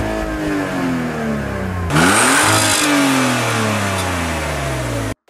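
Car engine revved twice. The first rev is falling back from high revs. The second snaps up about two seconds in, then winds down slowly toward idle.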